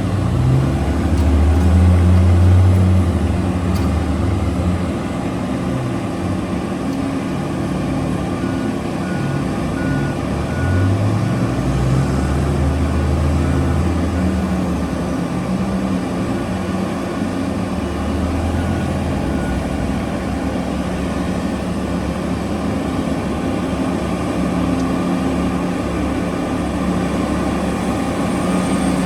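Heavy diesel engines of a mining excavator and haul truck running, the engine note rising and falling as they work under load. A reversing alarm beeps briefly about a third of the way in.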